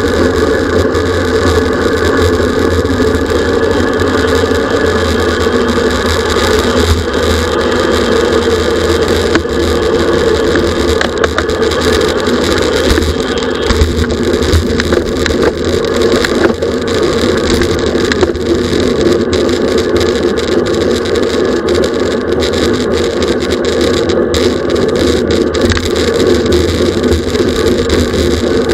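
Steady, loud wind and road rush on a camera riding on a racing bicycle at speed, with the tyres' hum on the pavement and small ticks from the bike.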